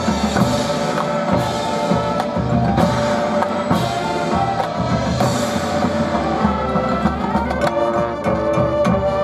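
High school marching band playing, with held wind chords over drum and front-ensemble percussion hits; a run of quick strikes comes near the end.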